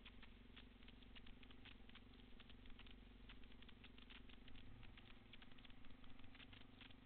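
Faint, muffled steady hum of a Honda dirt bike engine idling, under a stream of small irregular clicks and taps.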